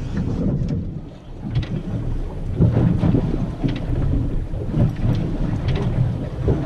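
Wind buffeting the microphone and choppy sea slapping against a fishing kayak's hull, a dense low rumble with several short slaps of water.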